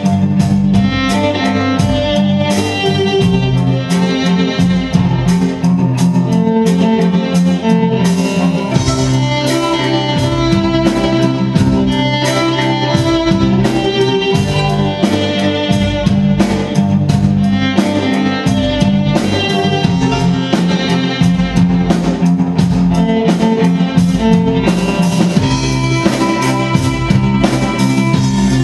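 Symphony orchestra with rock drums playing an arrangement of a rock song. Bowed violins carry the music over a steady drum beat.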